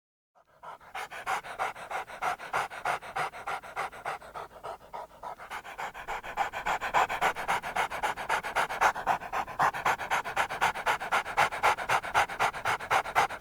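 A dog panting fast and evenly, about four breaths a second, growing louder about halfway through.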